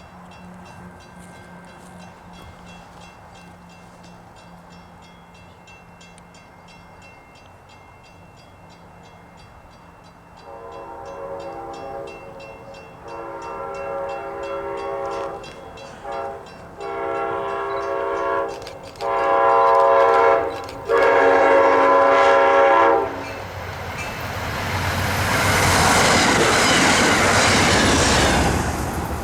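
Diesel passenger train's multi-tone horn sounding six blasts of mixed lengths, one very short, as it approaches, followed by the rushing, clattering noise of the train passing close by. The first third is quiet background before the horn begins.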